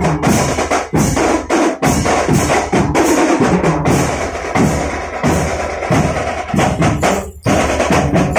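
Marching band drum section playing a fast, dense pattern of snare, tenor and bass drum strokes, with no brass.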